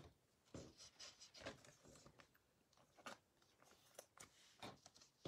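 Faint rubbing and soft clicks of football trading cards being slid and shuffled against one another in the hands, a few light touches spread through otherwise near silence.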